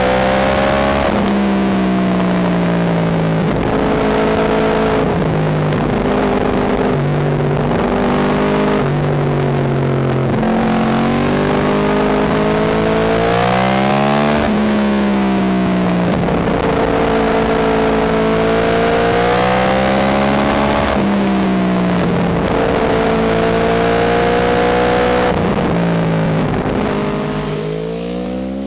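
Yamaha R1 sport bike's inline-four engine under way, its pitch climbing and falling again and again as the throttle is worked and gears are changed, with a rush of wind noise. The engine note eases off near the end.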